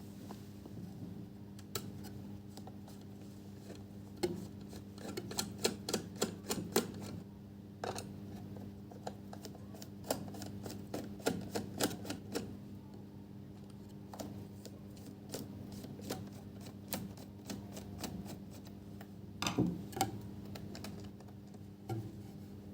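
Irregular light clicks and taps, bunched into quick runs about five to seven seconds in, ten to twelve seconds in and again near twenty seconds in, over a steady low hum.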